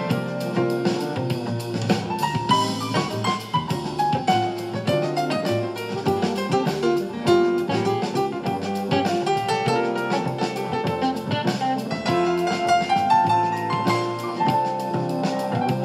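Background music with guitar and a drum kit keeping a steady beat.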